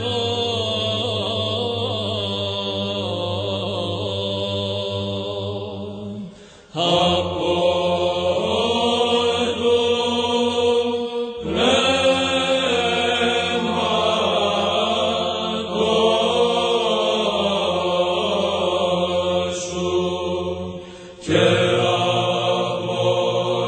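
A psalm chanted in long, slowly moving vocal phrases over a steady low held drone note. The singing breaks off briefly three times between phrases.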